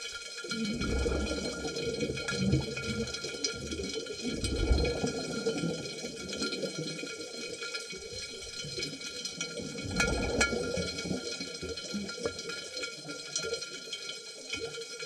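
Scuba diver breathing out through the regulator: bubbles gurgle and rumble past the camera in three bursts, about a second in, about four and a half seconds in and about ten seconds in.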